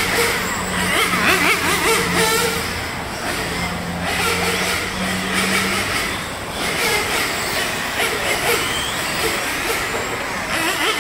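Several 1/10 electric RC touring cars running laps, their motors whining up and down in pitch as they accelerate and brake. A steady low hum runs underneath and stops about six seconds in.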